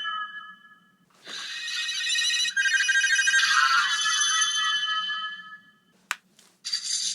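Aurachanger toy transformation brace playing electronic chimes and tone effects from its small speaker, set to its RyuRanger sounds. A sharp button click comes about six seconds in, and another tone sequence starts just after it.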